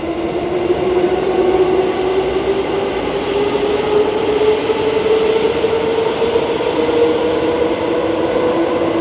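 Transperth A-series electric multiple-unit train pulling out of an underground platform into the tunnel. The wheels hiss on the rail, and a whine rises slightly in pitch over a steady hum.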